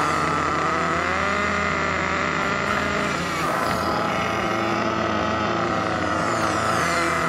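Small nitro engine of a 1/8-scale HPI Trophy 3.5 RC buggy running at high revs close to the microphone, its whine rising and falling in pitch as the throttle changes, with a second nitro buggy running alongside.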